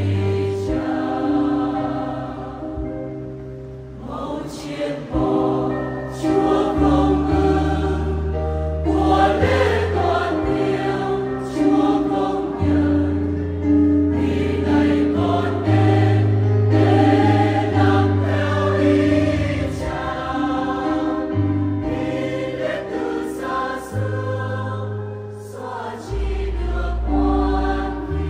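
Large mixed choir of women and men singing a Vietnamese Catholic hymn in harmony, over sustained low bass notes.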